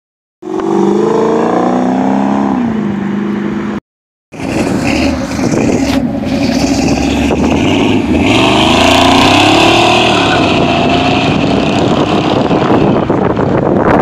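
Loud car engines and exhaust as cars drive past and accelerate away. The engine note falls in pitch in the first few seconds, then rises and falls again. The sound drops out to silence at the start and again about four seconds in.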